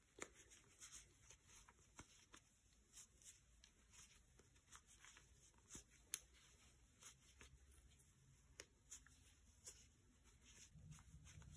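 Faint rustling and irregular soft clicks of a 12 mm plastic crochet hook working chunky t-shirt yarn, stitch after stitch, with one sharper click about six seconds in.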